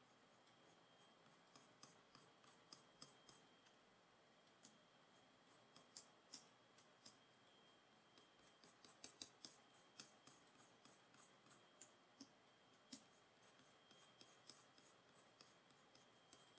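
Near silence broken by faint, sharp clicks of a computer pointing device as sculpting brush strokes are made, irregular and at times several a second, over a faint steady high whine.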